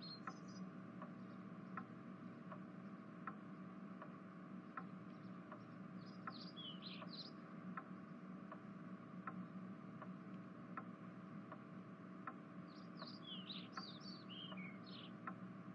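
Faint background ambience: a clock ticking steadily, about four ticks every three seconds, over a low steady hum. Birds chirp in two short flurries, around six seconds in and again near the end.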